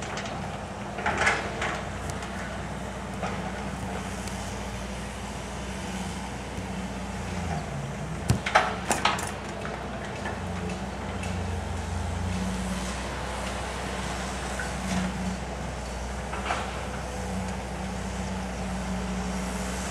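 Steady low engine drone from a heavy vehicle or machine running in the distance, with a few sharp knocks: a pair about a second in and a cluster around eight to nine seconds in.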